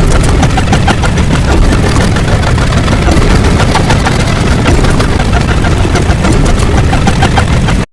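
A loud, dense rumbling noise, heavy in the bass like a big engine running, that cuts off suddenly at the very end.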